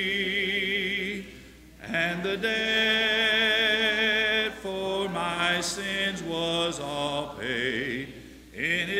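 A congregation singing a hymn a cappella, led by a man's voice: slow, long-held notes, broken by two short pauses for breath between phrases, about one and a half seconds in and near the end.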